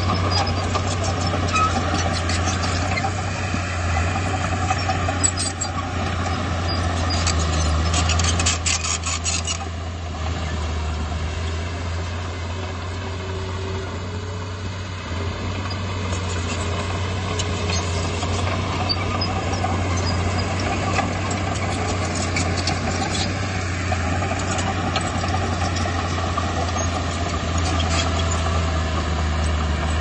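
Komatsu D31P crawler bulldozer's diesel engine running steadily at work, easing off for a few seconds about ten seconds in. Runs of rapid metallic clicking and clanking come through about five to nine seconds in and again around eighteen seconds.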